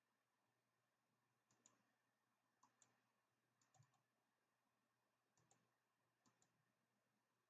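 Near silence with a few very faint computer mouse clicks, mostly in quick pairs.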